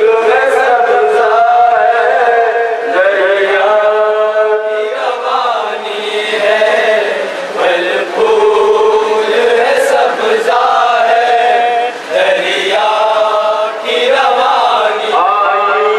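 Man chanting an Urdu noha, a mourning lament, in a melodic recitation with long held notes.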